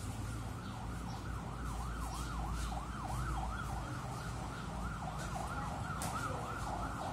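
A siren sweeping rapidly up and down, about three times a second, over a low steady rumble.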